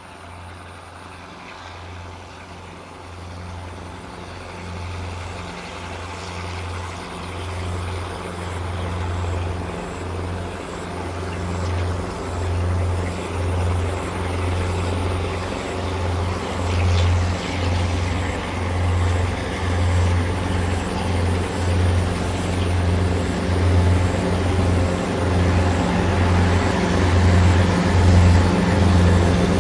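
Three CC 202 diesel-electric locomotives hauling a long coal train approach, their engines a low, pulsing drone that grows steadily louder as they draw near.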